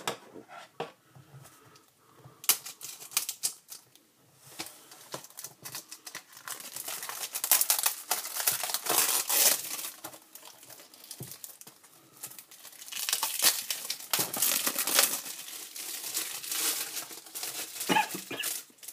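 Plastic shrink-wrap being torn and peeled off a DVD case, crinkling and crackling in two long stretches with quieter handling between.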